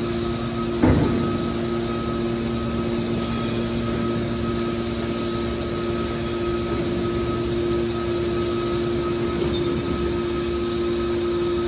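A hydraulic scrap-metal baler running with a steady mechanical hum, with one sharp knock about a second in.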